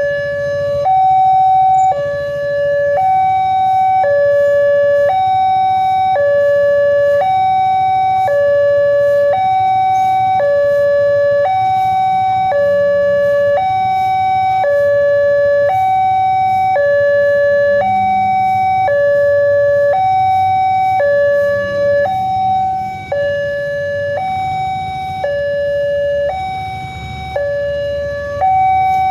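Electronic warning alarm of an Indonesian railway level crossing, alternating between a lower and a higher tone, each held about a second. It sounds while the barrier is down and the red lights flash, signalling that a train is approaching.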